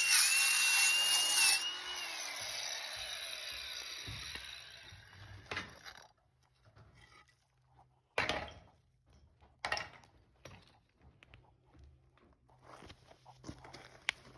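A power saw cutting through a clay sewer pipe with a high whine. It stops about two seconds in and dies away over a few seconds, followed by a few scattered knocks and scrapes.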